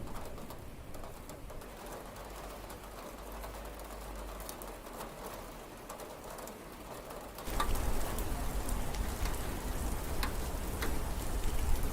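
Rain falling steadily, softer at first, then suddenly heavier about two-thirds of the way in, with individual drops ticking sharply.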